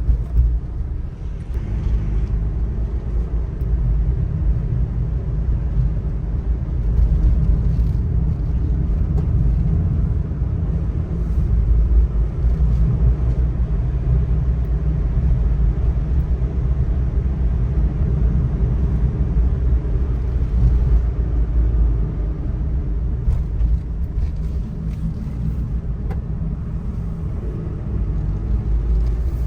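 Kei truck's small 660 cc engine running steadily under way, heard from inside the cab as a continuous low rumble mixed with road noise, the engine note wavering slightly with load, with a few faint clicks and rattles.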